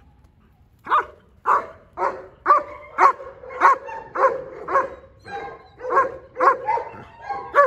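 German Shepherd barking repeatedly, about two barks a second, starting about a second in.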